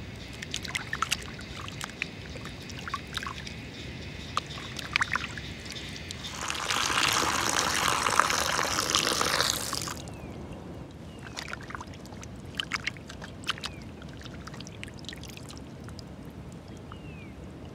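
Liquid pouring for about three seconds, starting about six seconds in and stopping abruptly, with light clicks and knocks of handling before and after.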